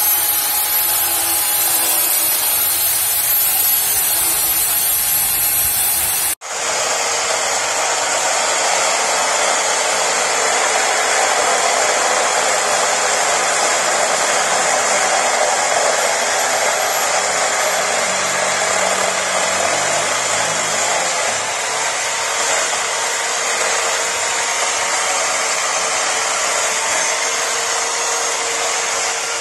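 Electric chainsaw running steadily under load as it rips lengthwise through a coconut palm trunk, a steady motor whine over the chain's cutting noise. About six seconds in, the sound breaks off abruptly and picks up again with a slightly different tone.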